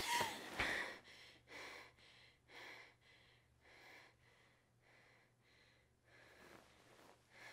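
A woman breathing fast and hard in short, even breaths, about two a second: frightened panting on waking from a nightmare. The first breaths are louder, like gasps, and the rest are faint.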